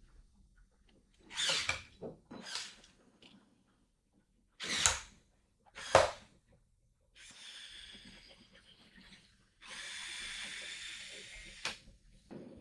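Electric motors and plastic gears of a remote-controlled LEGO Technic car whining in four short spurts, then running in two longer stretches of about two seconds each, with a sharp click near the end.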